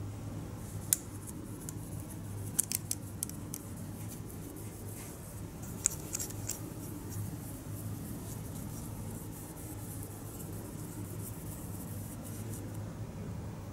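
Small sharp clicks and ticks of a plastic model car body being handled, then a cloth wiping over it, with a steady low hum underneath. The clicks come in a few clusters in the first half, and fainter ticks follow while the cloth is rubbed.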